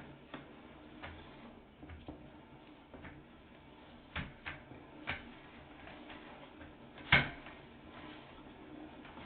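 Irregular clicks and knocks, roughly one a second, from a sewer inspection camera and its push cable as the camera is run through the sewer line. The loudest knock comes about seven seconds in.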